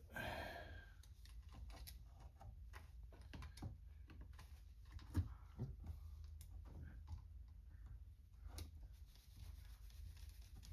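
Faint, irregular clicks and taps of small metal carburetor parts and a screwdriver being handled during reassembly, over a low steady hum.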